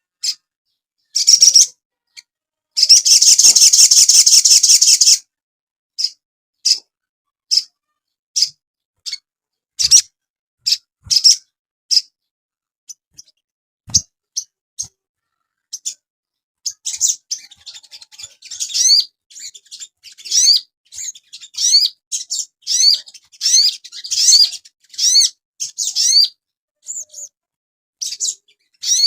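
Sogon songbird singing. A buzzy trill lasts over two seconds, starting about three seconds in. Scattered single sharp chirps follow, and from about halfway there is a dense run of quick downward-slurred whistles.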